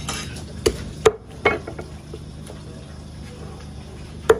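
Meat cleaver chopping raw chicken on a wooden chopping block: three chops within the first second and a half, then a pause and one more sharp chop near the end, with a short rustle of handling at the start.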